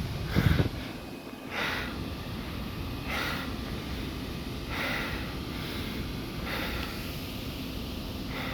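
A low thump about half a second in, then a person breathing in short, even breaths about every second and a half over a steady low hum.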